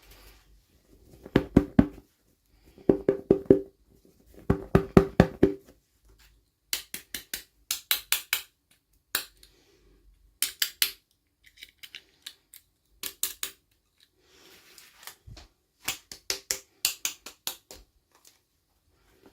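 Hands handling toy packaging during an unboxing: short runs of quick, sharp clicks and taps, about a second each, coming again and again with pauses between.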